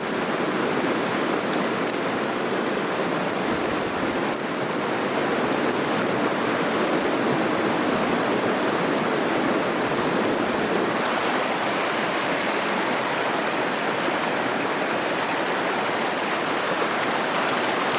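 Babbling creek: a steady rush of water running over rocks.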